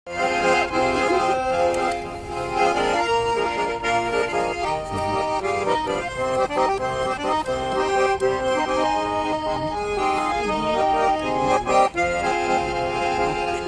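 Garmon, a Russian button accordion, playing the instrumental introduction to a song: a melody over held chords.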